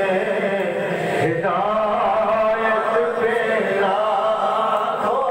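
A crowd of men chanting devotional verses together in unison, with long held notes.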